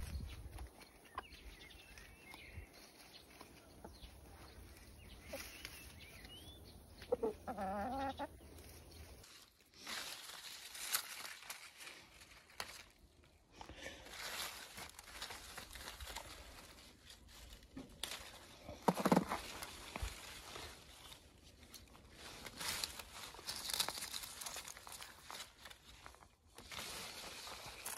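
Chickens clucking while a rooster and hens peck at fresh greens, with one longer wavering call about seven seconds in. Then leaves rustle in short irregular bursts as ripe strawberries are picked by hand and dropped into a wicker basket.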